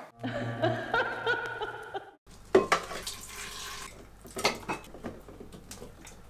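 Chopped avocado and frozen blueberries scraped with a wooden spoon from a glass bowl into a plastic blender jug: a few scattered soft knocks and clatters over a low hum. A brief stretch of steady pitched tones comes before it in the first two seconds.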